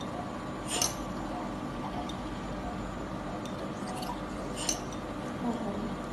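Steady room hum with a faint high steady tone, broken by short clicks of handling about a second in and twice more around the middle.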